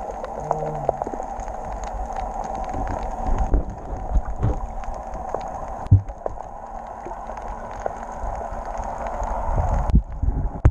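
Water sound picked up by an underwater camera in its housing: a steady hiss with scattered clicks and knocks. About ten seconds in the sound changes and heavier knocks follow as the camera moves near the surface.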